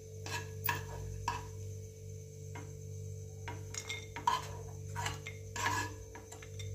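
Steel spoon scraping and tapping against a nonstick frying pan as roasted almonds and cashews are scooped out onto a plate: a string of short, irregular scrapes and clinks.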